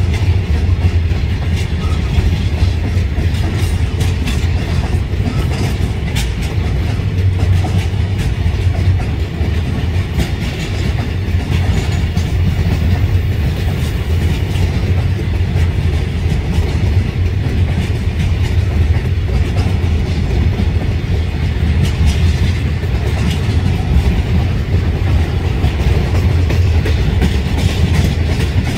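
Loaded container freight wagons rolling steadily past at close range: a continuous low rumble of steel wheels on rail, with light clicking of the wheels over the rail joints.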